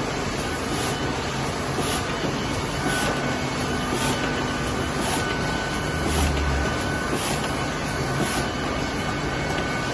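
Smyth F180 automatic book sewing machine running: a steady mechanical clatter with a sharp high click repeating regularly, roughly once a second.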